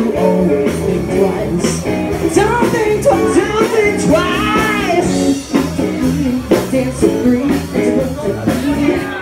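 Loud rock music with a singer over a steady drum beat and bass line.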